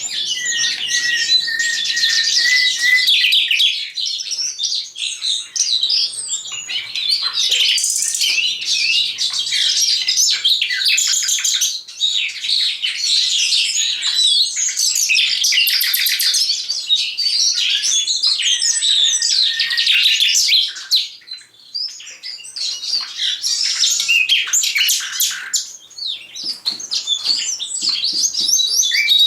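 A caged common nightingale and a caged Eurasian skylark singing together in a dense, unbroken mix of rapid trills, chirps and whistles, with a brief lull about two-thirds of the way through.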